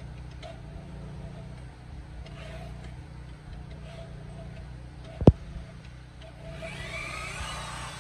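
Corded electric drill turning a long auger bit through a green cypress beam, the motor running steadily under load. A single sharp knock comes about five seconds in. Near the end the sound turns brighter and shifting as the spinning bit is drawn back out of the hole.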